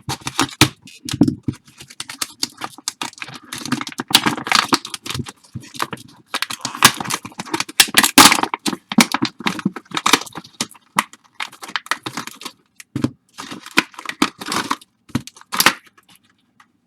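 Plastic and foil baseball card pack wrappers torn open and crinkled by hand, in many irregular rustling rips.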